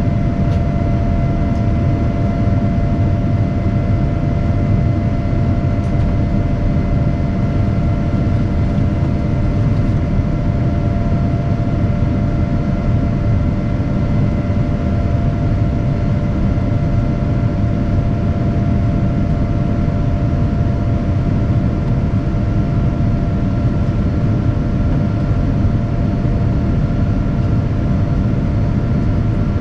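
Steady cabin noise inside a Boeing 787-9 in flight: an even low rumble of engines and rushing air, with a few faint, steady whining tones above it.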